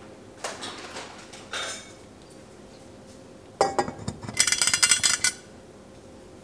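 Stainless steel pot lid set down on a stainless steel pot: a clank, then about a second of rapid metallic clinking as the lid rattles and settles on the rim.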